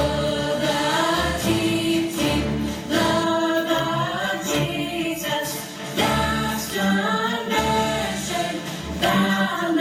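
Music with a choir singing, with sung lines that rise and fall in pitch over a low bass accompaniment.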